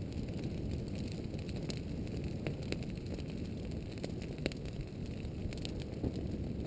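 Scattered crackling and sharp pops, one every second or so and loudest about four and a half seconds in, from a pahoehoe lava lobe pushing into a shrub and setting its leaves and twigs burning. Under them runs a steady low rushing noise.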